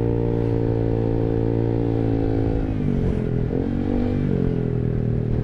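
Honda ADV 150 scooter's single-cylinder engine running through an R9 Alpha Series aftermarket exhaust, held at low revs. The engine note drops about two and a half seconds in, dips, then climbs back about four seconds in.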